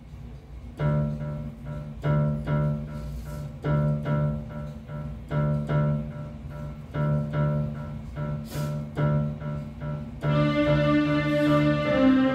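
Electronic keyboard playing a short melodic figure that repeats about every second and a half. About ten seconds in, a louder, fuller sustained sound joins in.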